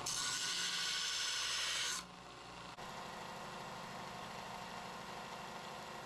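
Power sanding tool abrading the steel knife blank with a loud, gritty hiss. About two seconds in the blade comes off the abrasive, and the tool's motor keeps running on its own with a steady hum.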